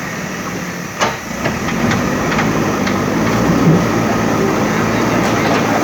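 JCB backhoe loader's diesel engine running under load, getting louder from about two seconds in. A sharp knock comes about a second in, followed by a few lighter knocks.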